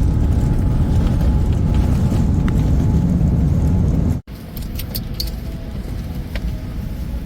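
Boeing 787 cabin noise: the loud, steady low sound of jet engines and airflow, cutting off about four seconds in. It is followed by a quieter cabin hum with a few light clicks.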